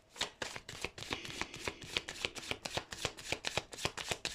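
A deck of tarot cards being shuffled by hand: a quick, continuous run of soft card slaps and flicks.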